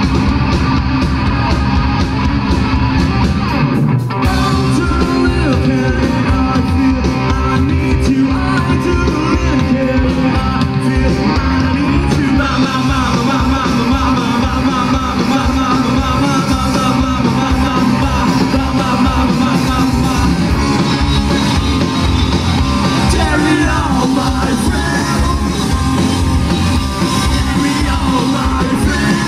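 Live punk rock trio (distorted electric guitar, bass guitar and drum kit) playing full-on, with a short break about four seconds in before the band crashes back in.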